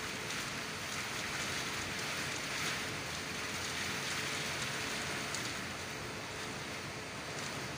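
Typhoon wind and rain, a steady rushing noise that swells and eases slightly, heard from indoors through the window glass.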